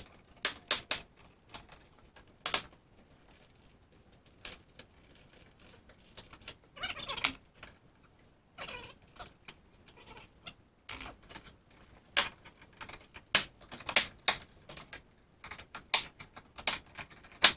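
Irregular sharp plastic clicks and knocks from a car door panel's trim clips and wiring connectors being handled and unplugged, with a brief scraping rustle about seven seconds in.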